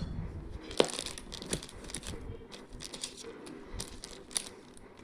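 Packaging being handled: plastic crinkling and rustling, broken by a few sharp clicks, the loudest about a second in.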